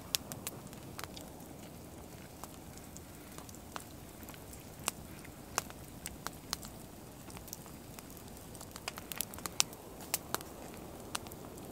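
Wood campfire crackling: irregular sharp pops over a steady low background, the pops coming more often near the end.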